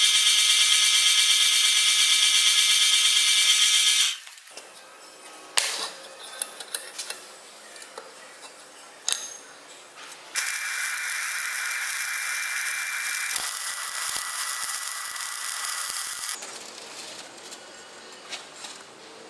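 Drill press boring into a flat steel bar: a loud, steady, high whine that stops about four seconds in, followed by a few clicks and knocks. The drill runs again for about six seconds from the middle, then stops, leaving light knocks.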